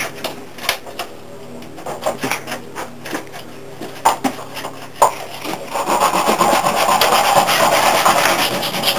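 Workbench handling: scattered light clicks and knocks as skateboard parts and tools are picked up and fitted. About halfway through, a continuous abrasive scraping on wood starts up and carries on.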